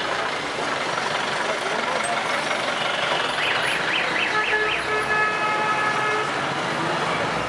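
Busy street traffic noise, with a vehicle horn sounding in the middle: a quick run of about five chirps, then a held horn tone for about a second and a half. Background voices underneath.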